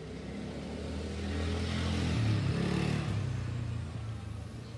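A motor vehicle's engine passing close by, growing louder to a peak about two seconds in and then fading away.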